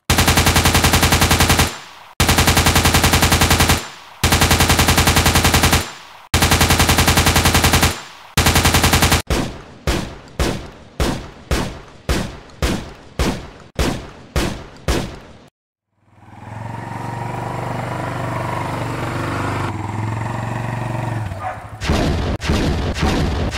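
Machine-gun fire in long rapid bursts of about two seconds each, then single shots about twice a second. After a moment of silence comes a steady low-humming run of about six seconds, like an engine, and rapid fire starts again near the end.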